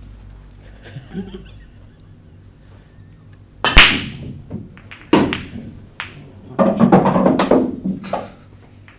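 Eight-ball pool break: the cue ball cracks into the rack of balls nearly four seconds in, then the balls clatter off each other and the cushions for a few seconds, with a ball dropping into a pocket.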